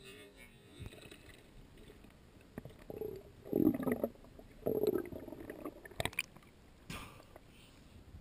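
Muffled underwater noise as a diver moves with a speargun: two low rumbling swells about three and five seconds in, then a couple of sharp clicks.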